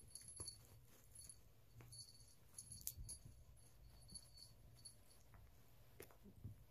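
A small bell jingling faintly in short, irregular bursts as a kitten bites and kicks at a cat toy, with a few soft knocks about six seconds in.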